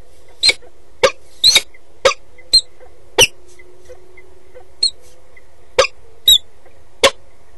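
Peregrine falcon giving short, sharp calls, one every half second or so with a short pause midway, over a faint steady hum.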